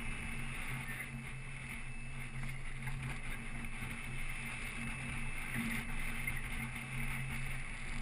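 Boat motor running at a steady, even hum.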